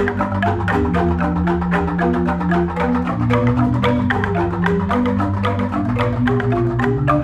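Balinese jegog ensemble playing: bamboo-tube xylophones struck in fast, interlocking strokes over long, deep bass notes from the large tubes, which change pitch a couple of times.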